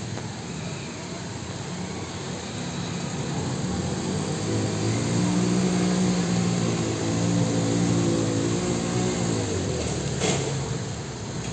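A motor vehicle's engine running steadily nearby, growing louder for a few seconds and then fading about two-thirds of the way in, over a steady background hiss. A short sharp click comes near the end.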